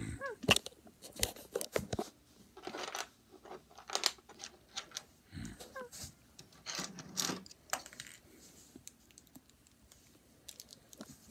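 Small plastic LEGO bricks clicking and clattering as they are handled and sorted, with rustling in between and a couple of brief squeaks.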